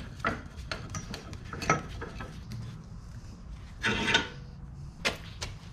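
Steel tube being set and clamped in a bench vise: scattered metal clicks and knocks, with a short scrape about four seconds in and another just after five seconds.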